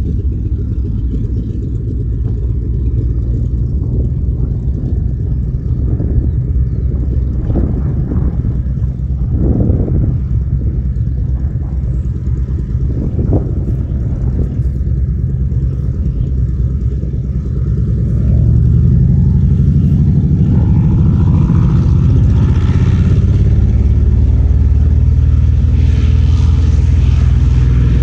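Aircraft engine noise with a heavy low rumble, growing louder about two-thirds of the way through and staying loud.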